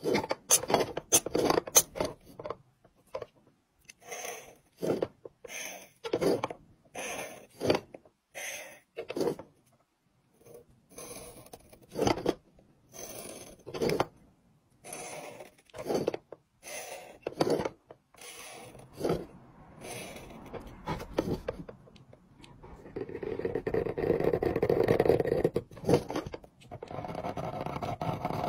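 Carving knife scraping lines into a red seal stone: a series of short scraping strokes about a second apart, then a longer stretch of continuous scraping near the end.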